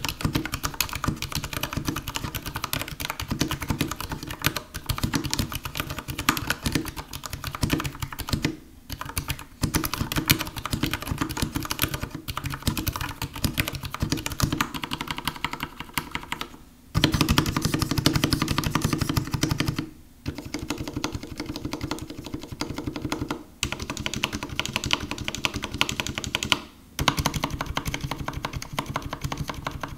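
Typing on a Vissles V84 mechanical keyboard with Vissles' own linear switches and cherry-profile PBT keycaps: a steady run of relatively muted key clacks, broken by short pauses every few seconds.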